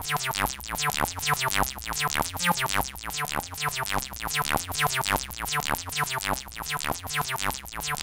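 Eurorack modular synthesizer patch playing a fast run of short notes, about five or six a second, each with a quick downward sweep, over a low bass line that steps between pitches.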